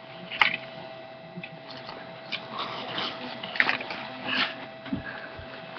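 Soft rustling and a few light clicks from a fabric clutch bag being handled and turned over, over a faint steady hum.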